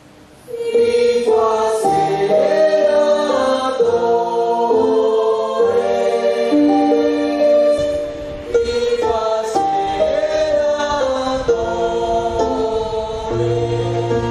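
A women's choir singing held notes in several-part harmony, starting about half a second in; a steady low note joins near the end.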